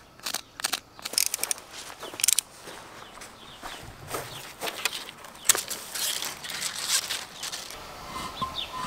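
Hand masonry work on the wall: irregular knocks, clicks and scrapes of tools and stones or blocks being handled, some in quick clusters. A bird chirps a few times near the end.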